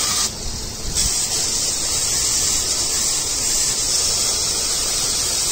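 Garden hose spray nozzle hissing steadily as water is sprayed over the engine, rinsing spilled coolant off it. The spray dips briefly under a second in, then carries on.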